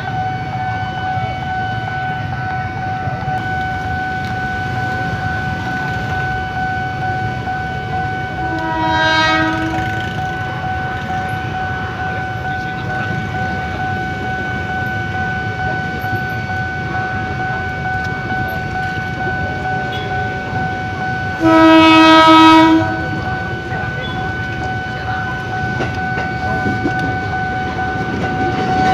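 Level-crossing alarm sounding a steady high tone while an electric commuter train blows its horn twice: a fainter blast about nine seconds in and a loud one of about a second and a half after twenty-one seconds. Near the end the rumble of the train running into the crossing grows.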